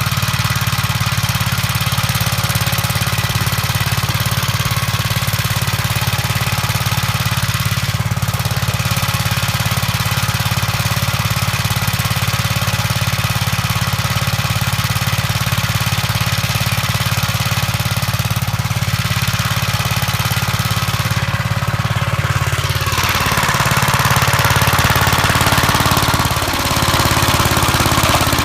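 1959 Gravely Model L's single-cylinder engine running steadily. About 23 seconds in, its pitch drops as it takes load and a loud rushing noise joins it, as the snow blower bites into snow.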